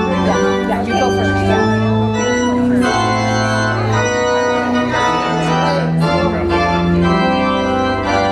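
Organ music playing steadily: chords held and changing about every second over a moving bass line.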